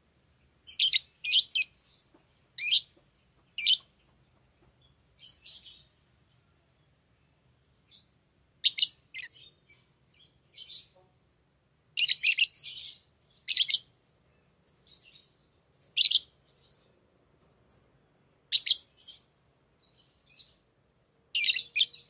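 Small pet parrots calling in short, sharp, high-pitched chirps, singly or in quick clusters of two or three, with pauses of a second or more between them.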